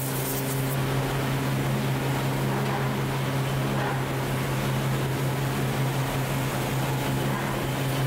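Steady low hum of forging-shop machinery running, with no hammer blows or impacts.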